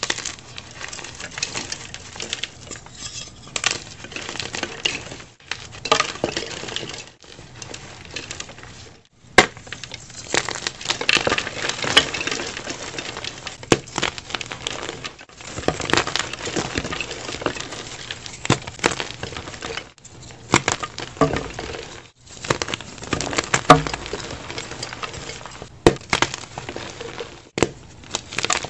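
Blocks of dyed gym chalk being snapped and crushed between the fingers: dense crunching and crackling with many sharp snaps, broken by a few short pauses.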